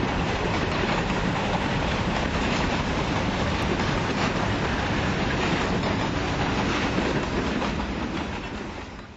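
Freight train's hopper cars rolling past at close range: a steady rumble of steel wheels on the rails, fading out near the end.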